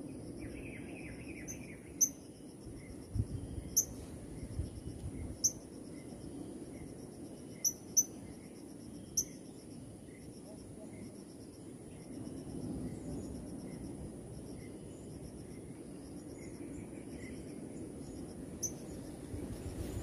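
A steady high-pitched insect chorus of crickets and cicadas, with a pulsing trill under the drone. Several short, sharp, high bird chirps cut through it, most of them in the first half.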